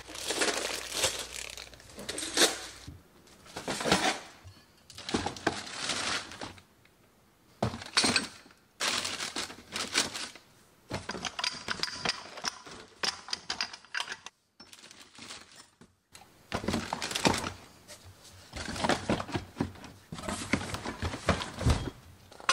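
Packing noises: metal cookie cutters clinking in a plastic zip bag, then boxed kitchen items and a plastic bag knocking, rustling and crinkling as they are set into a cardboard box. The noises come in irregular handling bursts with short pauses between them.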